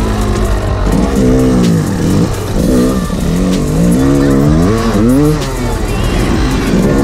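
Suzuki Djebel 250 dirt bike's single-cylinder four-stroke engine, close up, revving up and down again and again as it is ridden off-road, its pitch rising and falling.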